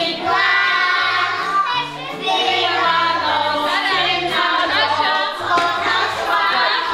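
A song with young children's voices singing a melody over an instrumental backing with a bass line stepping from note to note.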